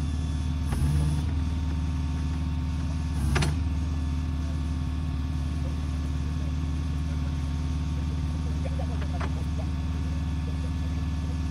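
Vehicle engine idling steadily, a low even hum, with a sharp knock about three and a half seconds in and a lighter one just under a second in.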